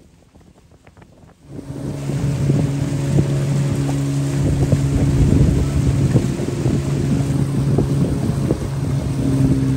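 Small boat's motor running steadily at speed, with water rushing past the hull and wind on the microphone. It comes in suddenly about a second and a half in, after a quiet stretch of faint wind.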